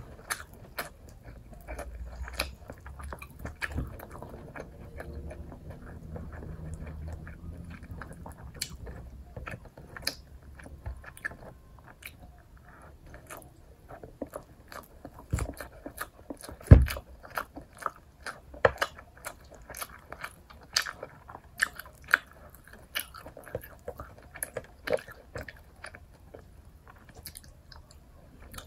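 Close-miked eating: a person biting and chewing chicken and rice eaten by hand, with a steady run of sharp, wet mouth clicks that come thicker in the second half. There is one louder thump about 17 seconds in.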